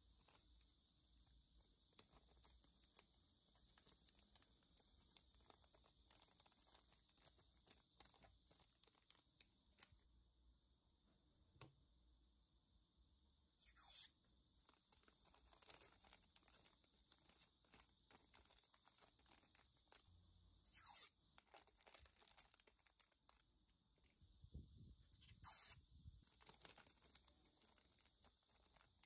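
Faint crinkling and light tearing of thin clear plastic bags and protective film as resin mirror phone grips are handled, with many small ticks and three louder crinkles, about halfway through, about three-quarters through and near the end.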